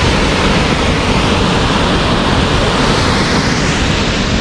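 Upper McCloud Falls pouring close by: a loud, steady rush of falling water.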